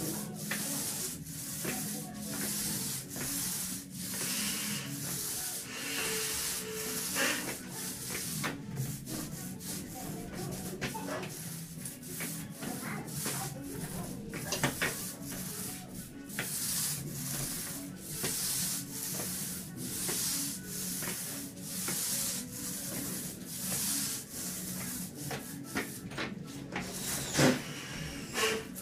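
Paint roller rolling a wet epoxy top coat over a vinyl-flake floor: a rubbing hiss that swells and fades with each stroke, with a sharper knock near the end.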